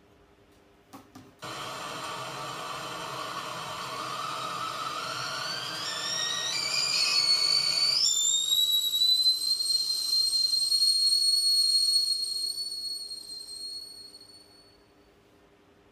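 A hiss that starts suddenly and climbs in pitch in steps over about six seconds into a steady, high whistle, which then fades out near the end.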